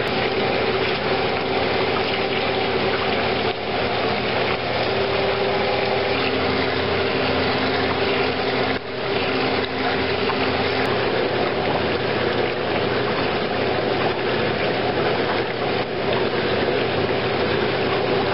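Steady loud rush of churning water in catfish egg hatching troughs, stirred by paddles turning on a shaft, over a low constant machinery hum.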